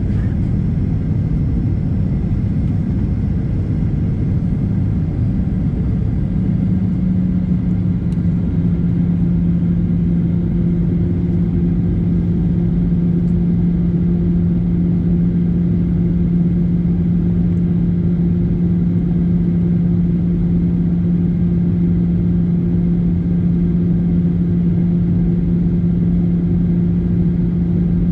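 Jet engine and airflow noise inside an airliner cabin on the descent to land: a steady rumble with a droning hum that shifts slightly in pitch about six seconds in, then holds steady.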